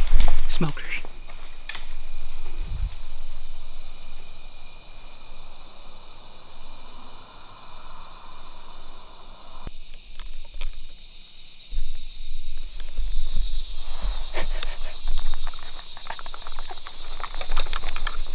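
Steady high-pitched drone of an evening insect chorus in the woods, with a loud knock right at the start and scattered rustles and low bumps of handling later on.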